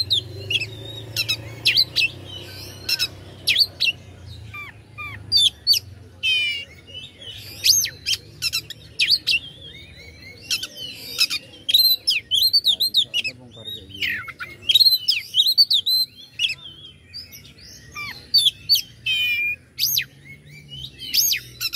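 Oriental magpie-robin (kacer) singing: a fast, varied string of whistled glides and sharp chipping notes, phrase after phrase with short pauses between them.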